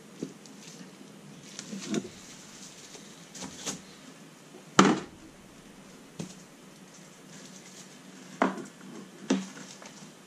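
Irregular knocks and clatter of tools and parts being handled and set down on a workbench: about six separate hits, the loudest about five seconds in and two more near the end.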